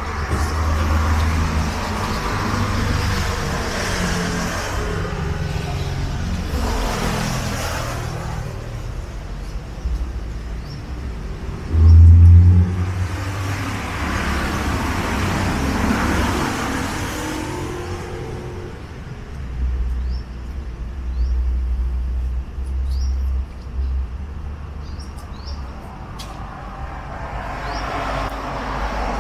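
Road traffic passing: several vehicles swell up and fade away over a low rumble, with a short, loud low thump about twelve seconds in. Faint bird chirps come through in the later part.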